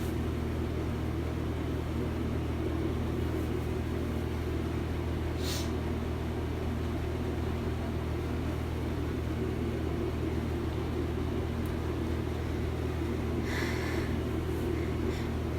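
A steady low hum throughout, with a few short sniffles through a cold-stuffed nose: one about five and a half seconds in and a couple more near the end.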